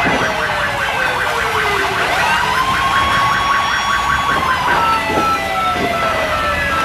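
Several fire truck sirens sounding at once: a slow wail sweeping down and back up, over a faster warbling siren that turns to a steady tone a little over halfway through.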